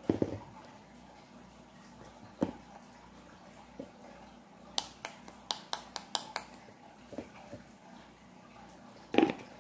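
Corn starch being added from a plastic measuring spoon to a bowl of cut raw chicken: a soft knock at the start, then sharp plastic clicks and taps, with a quick run of about seven clicks midway.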